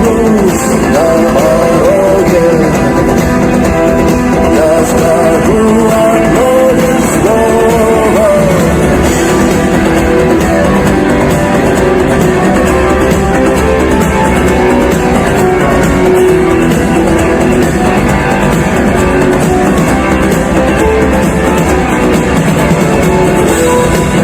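Rock band playing an instrumental stretch of the song, with guitars, bass and drums. A bending melody line stands out over the band for the first several seconds, then the band carries on steadily.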